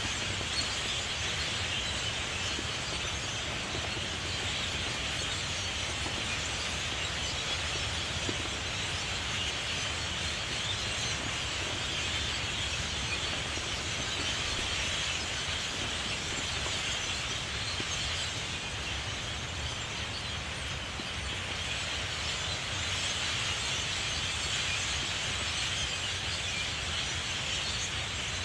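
Dense chorus of many small birds chirping at once, forming a steady high-pitched wash over a low rumble.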